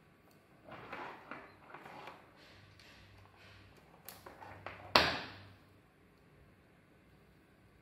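Cables and a small connector being handled: soft rustling and small clicks, then one sharp knock about five seconds in with a brief ringing tail.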